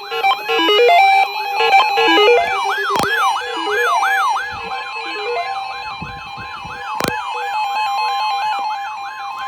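Electronic synthesizer music with a siren yelp that rises and falls about two to three times a second, over a steady tone. Two sharp clicks cut through it, about three seconds in and again about seven seconds in.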